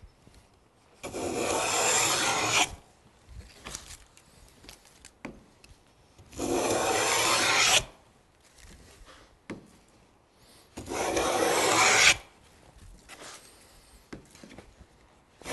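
Wooden No. 12 round moulding plane cutting a cove in a board: three long strokes, each lasting about a second and a half, the iron peeling off a shaving with a rasping hiss. Faint knocks come between the strokes.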